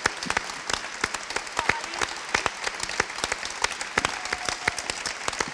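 Large seated audience applauding, a dense and steady patter of many hands clapping.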